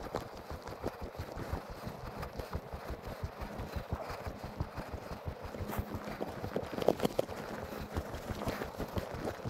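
Steady, rhythmic footfalls of a person moving along a snow-covered dirt trail, several thumps a second.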